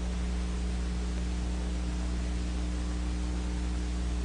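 Steady hiss with a low mains hum, the background noise of an old film soundtrack, with no other sound standing out.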